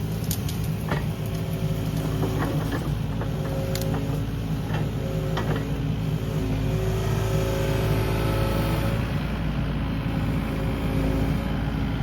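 Kubota KX080 mini-excavator's diesel engine running steadily under load, with hydraulic whine that shifts in pitch as the arm works. Several sharp cracks and snaps in the first half or so, from brush being torn out.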